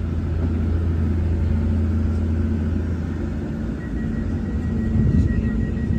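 Steady low rumble and hum of a train's engine idling at a platform, with a faint high steady whine joining about two-thirds of the way in.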